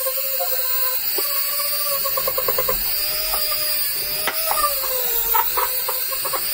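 Handheld rotary tool running with a small wire brush against a rusty steel hammer head. Its whine wavers up and down in pitch as it is pressed on and eased off, with scattered scratchy ticks from the brush on the metal.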